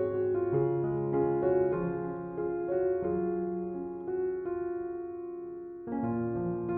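Background piano music: a slow melody over held chords, with a new chord struck about six seconds in.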